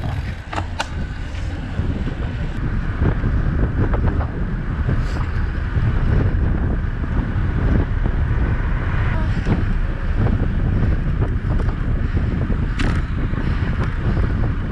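Wind buffeting an action camera's microphone on a road bike riding at speed, a loud, steady low rumble.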